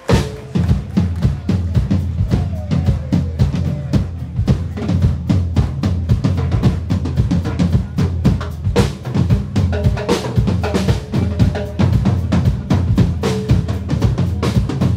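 Rock band playing live, the whole band coming in at once at full volume, with drum kit and bass loudest.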